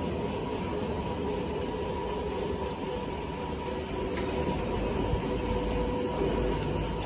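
Industrial machinery running steadily: a constant hum and whine over a low rumble, with a single sharp metallic click about four seconds in.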